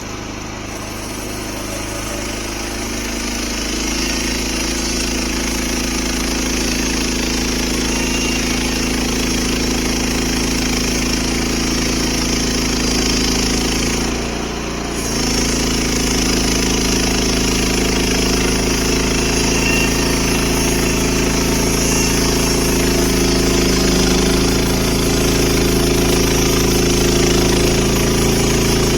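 Portable band sawmill's gas engine running steadily, the band blade sawing through a white oak log. The engine note dips briefly about halfway through, then picks up again.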